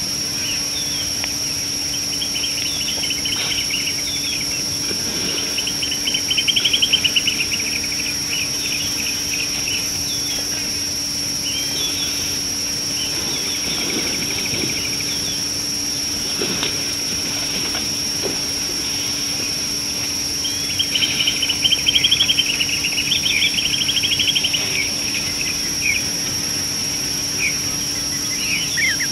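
Wild birds singing outdoors in bursts of rapid trills and chirps, loudest twice, over a steady high-pitched whine and a constant low hum.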